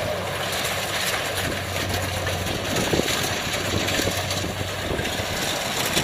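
Kubota DC70 combine harvester's diesel engine running steadily with a low hum while it cuts standing rice.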